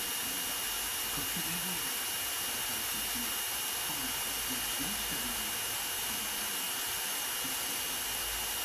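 Cordless drill running at one steady speed with a constant high whine, spinning a homemade micro gear pump submerged in a tray of water as it pumps water through the tube.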